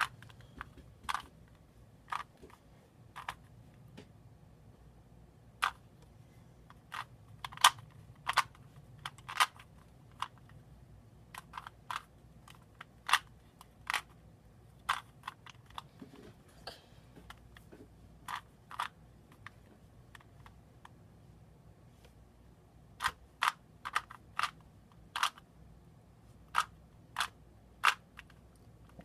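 Plastic 3x3 Rubik's Cube being turned by hand: sharp clicks of the layers snapping round at irregular intervals, sometimes several in quick succession.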